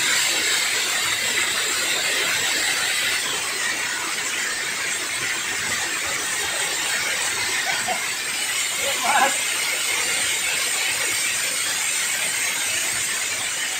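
Steady rush of river water pouring over a concrete weir into churning, foamy water below, with a brief louder sound about nine seconds in.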